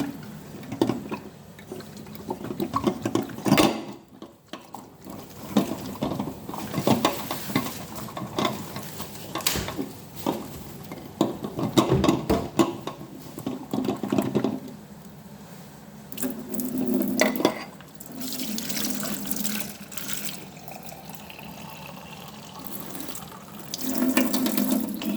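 Kitchen tap running into a sink while a container is filled up and poured out again and again, the water splashing in uneven swells, with a few sharp knocks.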